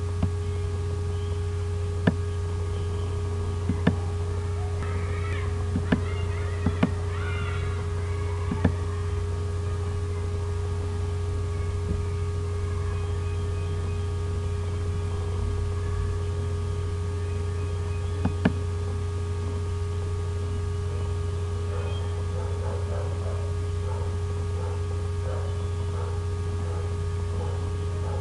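Steady electrical hum with a fainter steady higher tone, broken by sharp single and double clicks of a computer mouse, most of them in the first nine seconds and a pair near the middle.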